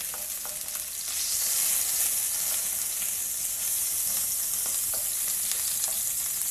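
Butter melting and sizzling in a hot pan: a steady crackling hiss that grows a little louder about a second in.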